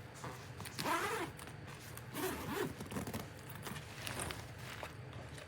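Zipper on a diaper bag backpack being pulled in three short runs, each with a swooping rasp.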